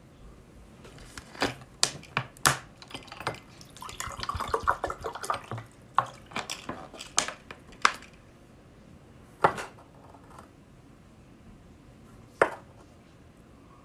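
Water poured from a plastic bottle into a drinking glass, a short gurgling pour in the middle. Around it come clicks and knocks of the bottle and glass being handled on the table, with two sharper knocks later.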